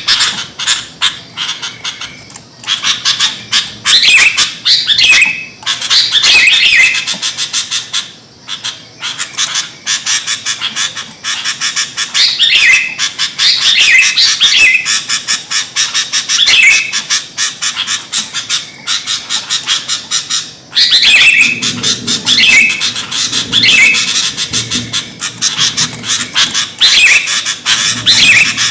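Sooty-headed bulbuls (kutilang) calling noisily: a dense, rapid chatter with short, loud phrases every second or two. This is the excited calling that is played to lure birds for trapping.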